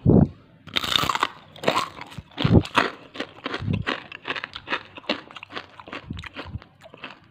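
A person biting into and chewing crispy rempeyek, a fried rice-flour cracker studded with fried grasshoppers: a long run of irregular crisp crunches, loudest in the first few seconds.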